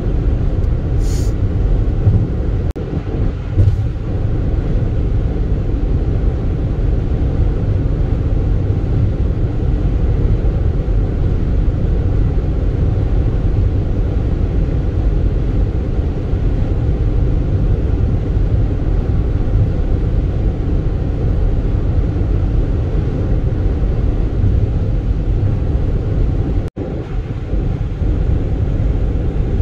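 Steady road and tyre rumble heard inside a car cruising at highway speed. The sound cuts out for an instant about three seconds before the end.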